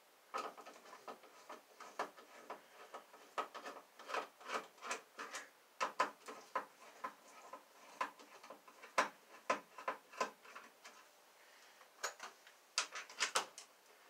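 Hand screwdriver backing out the mounting screws of an outlet from a plastic electrical box: a run of irregular small clicks and scrapes, bunched together near the end.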